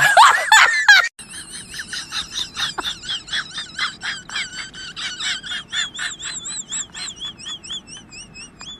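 A loud wailing voice that cuts off about a second in, then an animal's short, high-pitched chirps repeated quickly, about two to three a second, turning into quicker warbling notes near the end.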